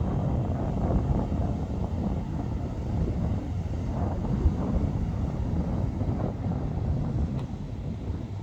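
Wind buffeting the microphone: a low, uneven rumble that flutters in strength.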